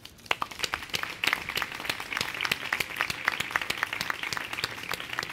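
Audience and panellists applauding: many hands clapping irregularly, starting just after a speaker's closing "gracias".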